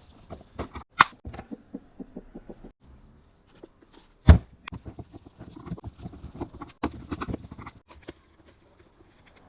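Irregular clicks, taps and rustling of hands working on a JBL portable speaker's parts and tools, with a sharp knock about a second in and a louder one just past four seconds.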